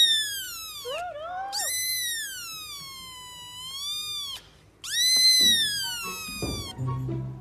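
Kitten meowing loudly: three long, high-pitched meows with short squeaks between the first two. The middle meow is the longest and slides down in pitch before turning up at its end.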